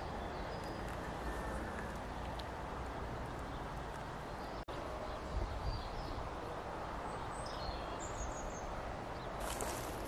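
Outdoor rural ambience: a steady hiss with a low rumble, and a few faint high bird chirps in the second half. Brief rustling, like steps through grass, near the end.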